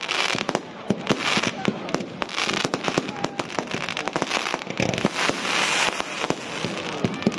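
Fireworks display: a rapid, irregular string of bangs and crackles from shells bursting overhead, several a second, over a continuous hiss from the fountains shooting up sparks.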